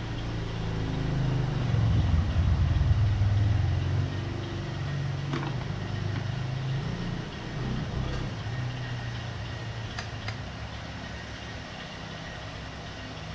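An engine idling steadily, swelling louder for a couple of seconds about two seconds in, with a few faint clicks of parts being handled.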